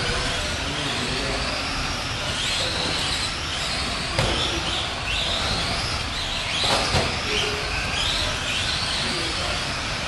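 Several Tamiya Euro race trucks' small electric motors whining, the pitch rising and falling over and over as they speed up and slow down around the track, over a steady background rush. There are a couple of short knocks around the middle.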